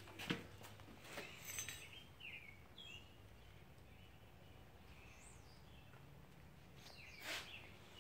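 Near silence: faint background tone with a low steady hum, a few soft clicks and some faint short chirps.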